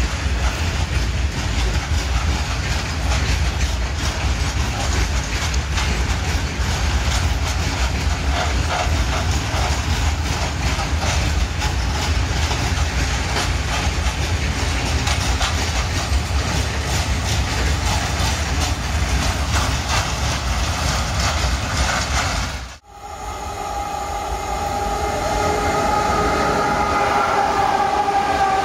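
Loaded freight train of open coal wagons rolling past: a steady low rumble with wheels clicking over rail joints. After a sudden break near the end, a twin-unit electric freight locomotive comes up close and passes, louder, with a steady whine of several tones.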